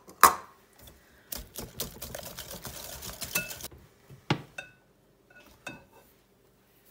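Wire balloon whisk beating a thick egg and brown sugar mixture in a glass mixing bowl: a rapid clattering run of strokes for about two and a half seconds, with single sharp clinks of the whisk against the glass before and after it.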